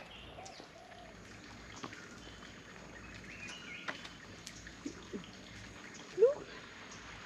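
Faint outdoor ambience with scattered short bird chirps. About six seconds in there is one louder, short rising call.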